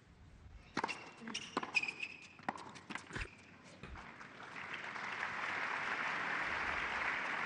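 Tennis rally on an indoor hard court: a string of sharp racket strikes and ball bounces over the first four seconds, then crowd applause swelling up from about halfway and holding as the point ends.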